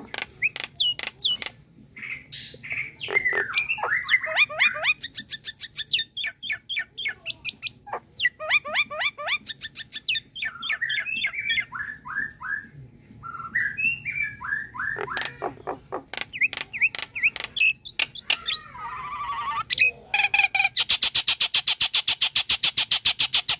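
Common myna calling close up: a varied run of clicks, chattering notes and whistles that rise and fall, ending in a loud, fast rattle over the last few seconds.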